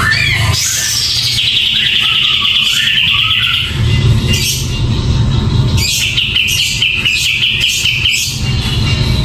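Caged kapas tembak bulbul singing. A falling note comes at the start, then two rapid trilled phrases of about two seconds each. Background music plays underneath.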